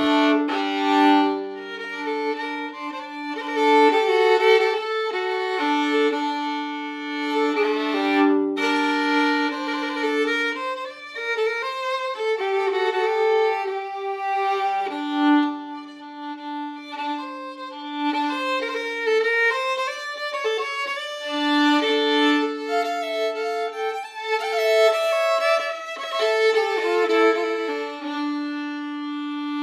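Fiddle music: a slow tune of long held notes, often two sounding at once.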